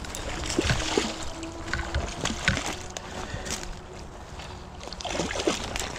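Running stream water with scattered short splashes and knocks while a hooked steelhead is being fought.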